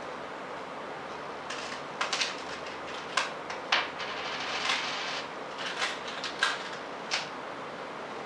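A pet rat scrambling over a wire cage top and picking at coins in a plastic dish: a scattered run of sharp clicks and clinks, starting about a second and a half in and stopping about a second before the end.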